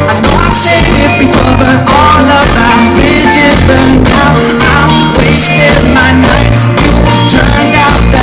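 Live pop-rock band playing through a PA system, with singing over the band. The bass is heavy and booming, recorded right beside the speakers.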